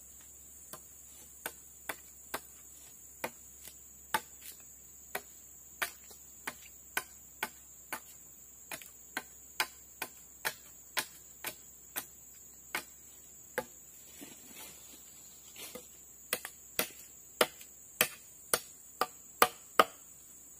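Machete chopping into a green bamboo pole: a steady run of short, sharp knocks about two a second, with a brief lull partway through and the hardest strikes near the end.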